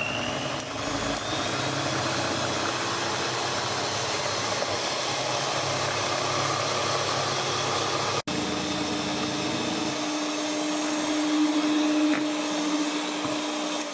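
Electric hand mixer running steadily, its beaters whipping eggs and sugar into a pale, fluffy cream. The sound cuts out for an instant about eight seconds in, then carries on with a clearer hum.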